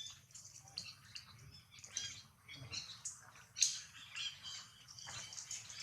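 Baby monkey squeaking and whimpering in short high-pitched chirps, coming irregularly several times a second.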